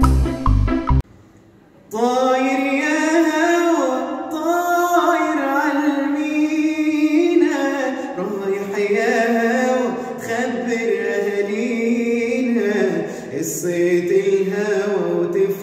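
A young man singing solo and unaccompanied in long, held phrases with bending pitch, starting about two seconds in. A short instrumental intro jingle ends about a second in.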